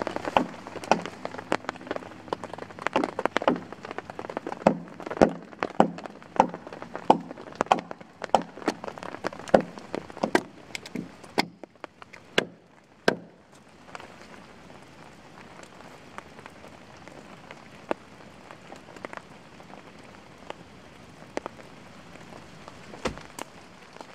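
A hatchet chopping into a fallen pine log, about one and a half blows a second for the first half, with steady rain falling throughout. After the blows stop, only the rain is heard, with a few faint ticks.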